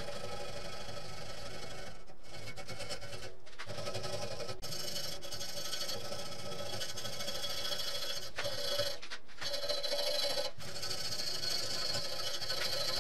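Power tool with a spinning wire brush stripping old paint and rust from a steel BMX frame: a steady motor whine under a continuous scratching hiss.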